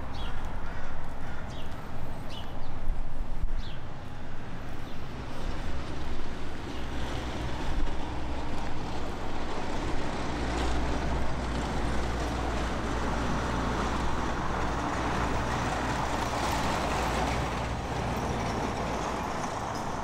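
A motor vehicle's engine running close by, a steady low rumble that builds about a third of the way in and holds before easing near the end.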